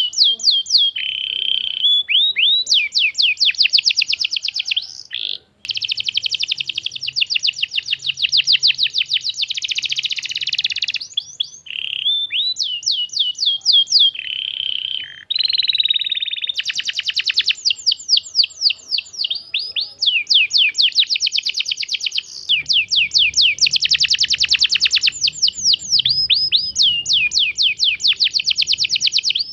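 Domestic canary singing a long, loud song of fast trills: runs of rapid, high-pitched repeated notes that change from phrase to phrase, broken by short pauses.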